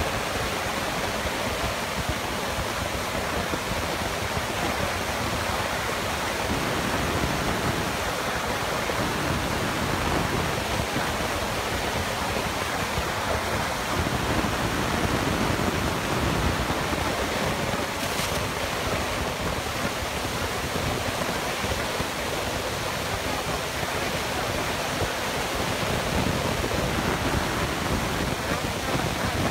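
Excavator with a hydraulic scrap shear running: a steady rushing noise with a faint low hum in stretches.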